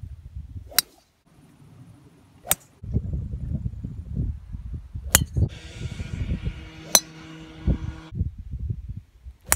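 Golf drivers striking balls off the tee: four sharp clicks, roughly two seconds apart, with a low wind rumble on the microphone between them.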